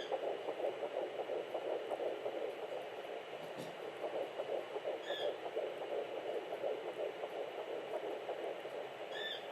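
Fetal Doppler picking up an embryo's heartbeat in a twin pregnancy at 9 weeks 5 days: a fast pulsing swish, the twins' rates running around 170 to 180 beats a minute. Three short high chirps come through, near the start, about five seconds in and near the end.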